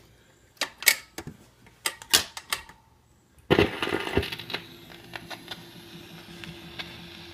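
1957 RCA 45 rpm record player mechanism clicking and clacking several times as it is set going. About three and a half seconds in there is a thump, then steady hiss and hum with light ticks, the stylus running in the record's lead-in groove.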